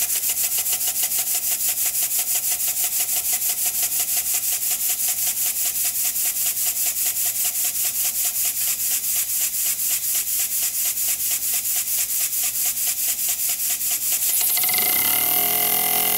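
Elmer's #25 wobbler steam engine running on compressed air, ticking away with a rapid, even beat of exhaust puffs from its oscillating cylinder. About 14.5 seconds in, the beats run together into a steadier hiss with a rising whine.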